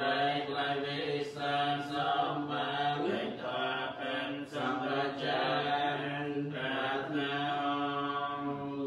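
Buddhist monks chanting in Pali in men's voices, held on a steady, even pitch in long phrases with short breaks between them.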